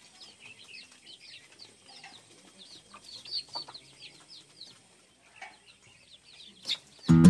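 A flock of chickens with half-grown young birds feeding on scattered rice: many short high peeps and a few lower clucks. Guitar music starts just before the end.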